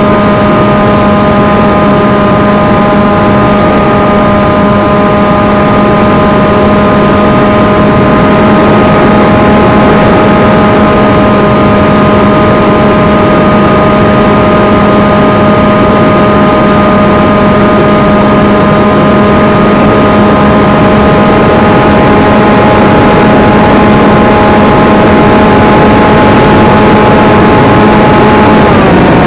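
Electric motor and propeller of an FPV flying wing, heard through its onboard camera: a steady whine at constant throttle over wind rush, with the pitch dropping right at the end as the throttle eases.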